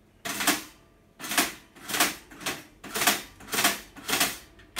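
A metal four-slice toaster worked by hand, giving a run of about seven sharp clacks, roughly two a second.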